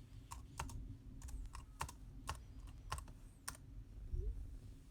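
Typing on a keyboard for the iPad Pro: about ten light, irregular key clicks.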